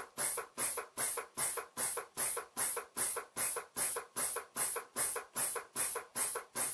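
2004KE pneumatic glue dispenser in timed dispensing mode, its valve firing short hisses of compressed air in a steady rhythm of about two and a half a second. Each hiss pushes a metered dose of fluid out of the syringe's needle.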